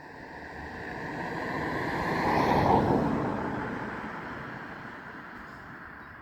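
A flock of starlings sweeping low overhead, the rush of thousands of wingbeats making a whoosh that swells to a peak about halfway through and then fades.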